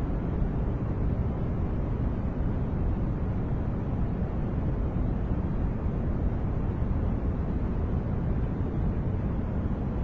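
Steady artificial noise of the white-noise kind, an even, unbroken rushing that is deep and dull rather than hissy, with no changes.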